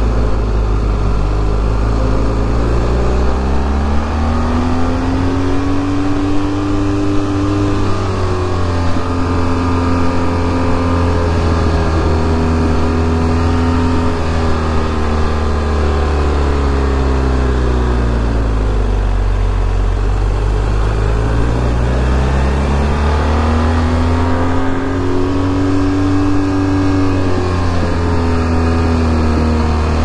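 BMW R 1250 GS boxer-twin engine under a rider's throttle. The revs climb for several seconds, drop a step with a gear change about eight seconds in, then hold. They fall away as the bike slows around the middle, then climb again and drop with another gear change near the end.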